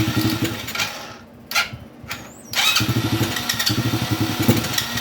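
Chinese 110cc engine being cranked over on its electric starter in two long bursts with a short one between, not settling into a steady run, just after a carburetor clean and a new spark plug.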